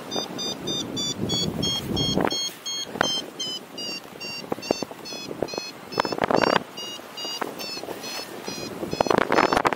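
Paragliding variometer beeping rapidly, about four to five short high beeps a second, the climb tone that signals the glider is rising in a thermal; the pitch steps down a little about four seconds in. Gusts of wind rush over the microphone about two, six and nine seconds in.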